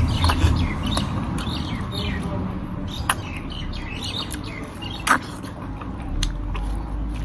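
Wet slurping, sucking and smacking mouth sounds of a person eating ripe mango, biting and sucking the fibrous pulp. Many small clicks and smacks, with two sharper slurps about three and five seconds in.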